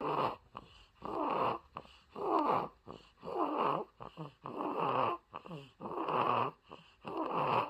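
A newborn baby, about seven weeks old, snoring in its sleep with a rattly, growly sound at about one breath a second. The parent suspects the snoring comes from a blocked nose.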